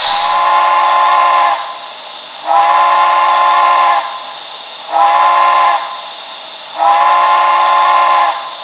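Steam locomotive whistle sounding the grade-crossing signal, long, long, short, long, played by the BLI Paragon 2 sound decoder in an HO-scale Santa Fe 2-10-2 model, with a steady hiss between the blasts.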